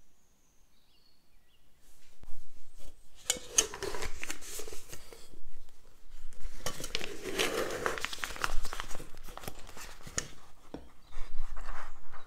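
A reusable piping bag being handled, fitted with its metal tip and folded open over a glass: rustling and crinkling with small knocks and clicks, starting about two seconds in. Near the end, whipped cream is scooped into the bag with a spatula.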